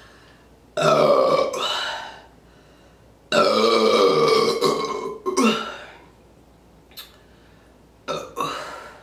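A woman's loud, drawn-out burps from gulping carbonated Sprite Zero: one about a second in, a longer one of about two seconds starting about three seconds in, and shorter ones near the end.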